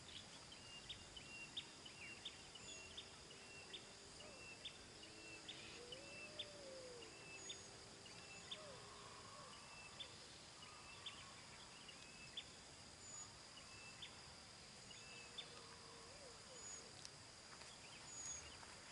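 Faint outdoor ambience: a steady high-pitched insect drone with short bird chirps repeating about once a second.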